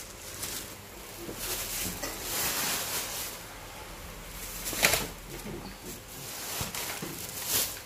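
Thin plastic shopping bags rustling and crinkling as hands dig through groceries, with sharper, louder crinkles about five seconds in and again near the end.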